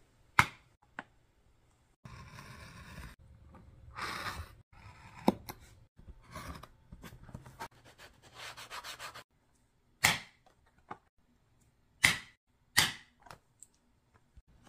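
Sandpaper rasping over the suede flesh side of vegetable-tanned leather in repeated rubbing strokes. Near the end come a few sharp strikes, which fit a hole punch being driven through leather on a wooden stump.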